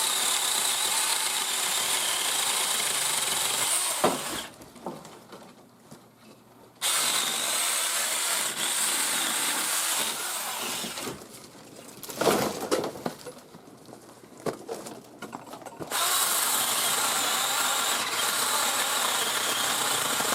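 Seesii PS600 battery-powered electric pole saw cutting branches into log lengths, with three runs of about four seconds each. Between the cuts there are quieter pauses with a few knocks.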